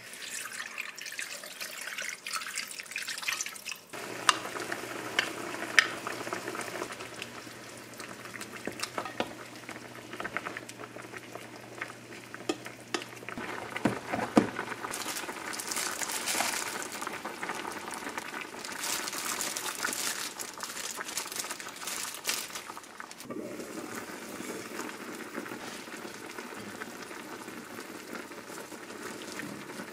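Cooking at a pan of chicken and aged kimchi on an induction cooktop: spoon and container clicks and knocks in the first half, then the braise simmering and bubbling steadily from about three-quarters of the way through.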